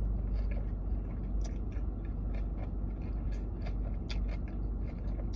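A person chewing food close to the microphone, with irregular crisp crunching clicks over a low steady hum.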